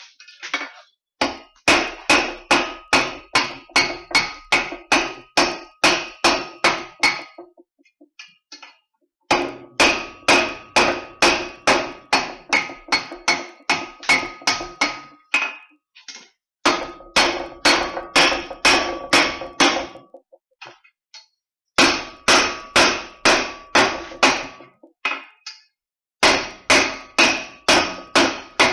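Blacksmith's hammer striking hot steel on an anvil, about three blows a second in five runs with short pauses between, the anvil ringing under each blow.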